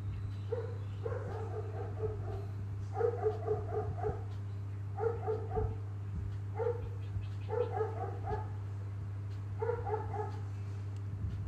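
A dog barking in quick runs of short yaps, repeated about every one to two seconds, over a steady low hum.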